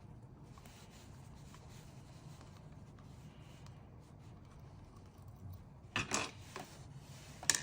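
Small sharp metal clicks from an Allen key working the screw inside a bathroom faucet handle: faint scraping at first, then a short run of clicks about six seconds in and one sharp click near the end, over a faint low hum.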